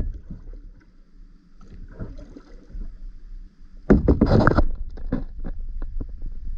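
Kayak paddling on a lake: a sharp knock at the start, a louder rush of splashing and clatter about four seconds in, then scattered small clicks.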